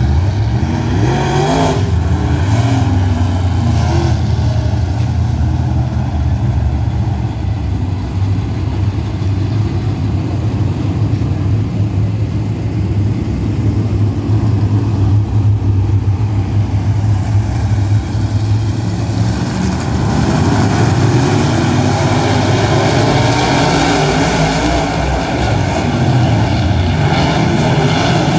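A pack of dirt-track modified race cars with V8 engines running around a dirt oval. The engines drone steadily at first, then from about twenty seconds in grow slightly louder and busier, with rising and falling revs as the cars accelerate.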